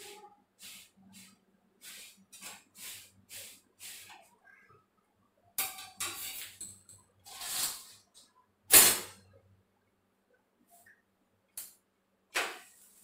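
Kitchen handling sounds of roti being pressed and turned on a tawa griddle: soft strokes about two a second, then louder scrapes. A sharp knock of cookware about nine seconds in is the loudest sound, with two shorter knocks near the end.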